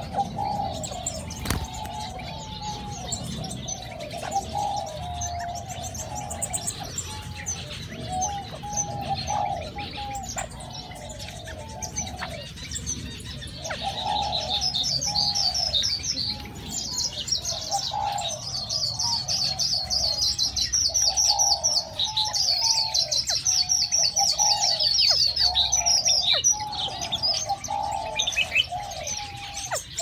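Aviary birds calling: a steady run of low, repeated cooing notes, typical of diamond doves, goes on throughout. From about halfway a small songbird joins with a loud, fast, high trilling song that stops a few seconds before the end.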